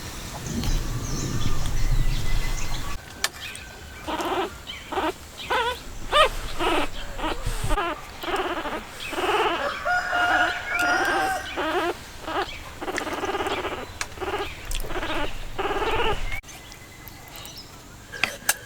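Animals calling: a run of short, pitched, repeated cries, one or two a second, that stop abruptly a couple of seconds before the end.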